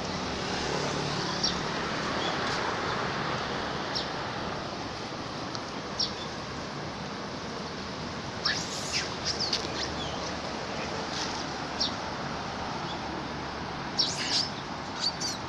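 Short, high chirping animal calls, some falling in pitch, scattered singly and twice in quick clusters, over a steady background hiss.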